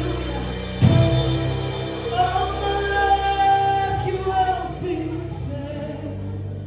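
Live worship music with singing: a sustained keyboard-and-bass chord that is struck again about a second in, under a held sung melody, fading toward the end.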